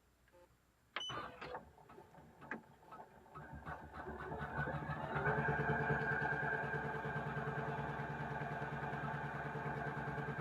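Poolin EOC07 single-needle embroidery machine starting a stitch-out: a short beep and a few clicks about a second in, then the motor and needle mechanism speed up over a couple of seconds and settle into a steady, even run.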